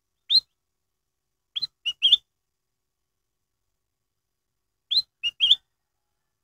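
Ruby-throated bulbul (kutilang emas) singing short, clear, rising whistled notes: one note, then a quick phrase of three notes, and the same three-note phrase again near the end, with silence between.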